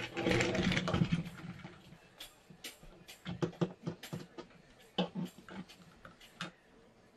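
Hard plastic parts of a Fisher-Price Octonauts Peso's Medical Buggy toy clicking and knocking against each other and on a tabletop as they are handled. A louder, busier burst of noise comes in the first second, then scattered separate clicks and taps.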